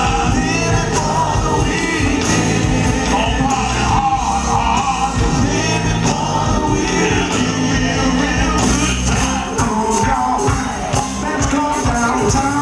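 Live soul/R&B band playing with keyboards, a male lead singer and female backing singers singing over it.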